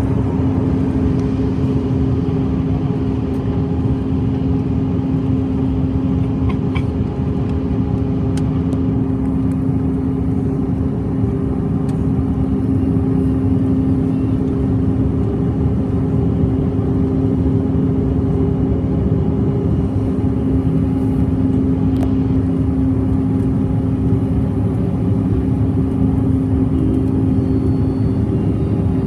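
Cabin noise inside a Bombardier CRJ-700 regional jet in its climb: a steady rumble of airflow and the rear-mounted turbofan engines, with a steady drone of two hum tones over it.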